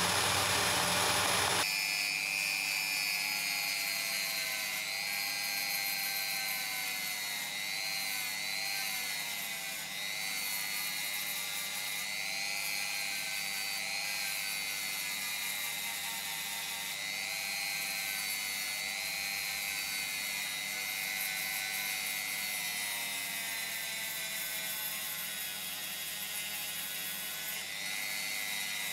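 A belt sander runs for about the first two seconds and cuts off. Then a handheld rotary tool with a small abrasive stone whines steadily as it grinds a wooden saw handle, its pitch wavering slightly as it bears on the wood.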